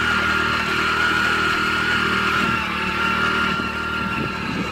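Motorcycle engine running steadily while riding uphill, with a steady high whine above the engine note.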